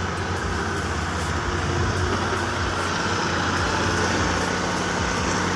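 A loaded dump truck's engine running steadily under load as the driver tries to drive out. The rear wheel is sunk in mud and the truck lacks the power to climb out.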